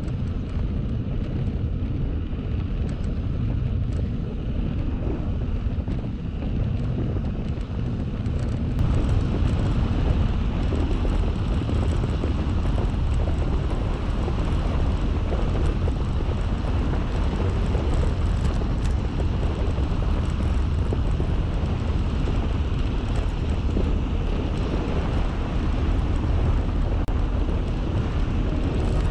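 Steady rushing wind noise on the microphone, heaviest in the low end, growing louder and brighter about nine seconds in.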